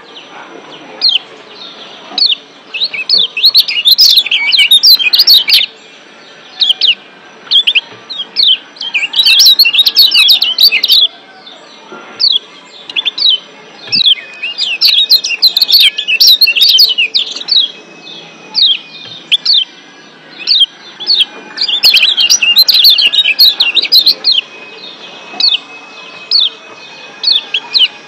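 Lombok yellow white-eye (kecial kuning) giving its 'ciak' call: rapid runs of sharp, high chirps, each a quick downward slide, coming in dense clusters of a second or two with short pauses between.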